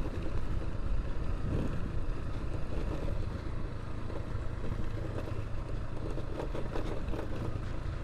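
Dafra Kansas 150 motorcycle's single-cylinder engine running steadily while riding on a dirt road, with wind on the microphone.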